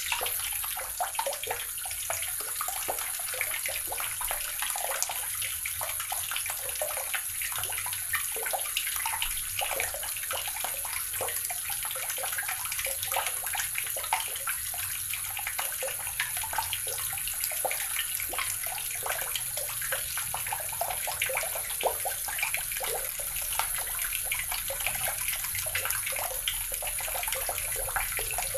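Water running steadily from a tap, a continuous splashing stream with many small irregular splashes and no break.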